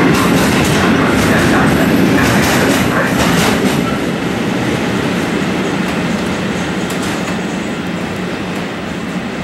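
A train running by on the track, wheels clattering over the rail joints; the noise fades steadily over the second half as it draws away.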